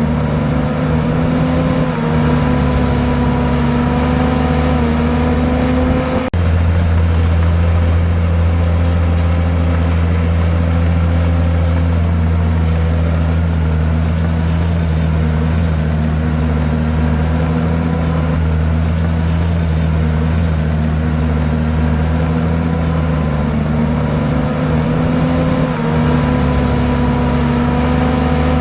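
Komatsu bulldozer's diesel engine running loud and steady as the dozer works, its pitch dipping and rising slightly a few times. A brief dip about six seconds in, after which the deep engine note is stronger.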